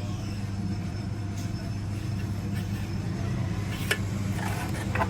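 Steady low machine hum of a workshop, with a few sharp metallic clicks and a cluster of small knocks near the end.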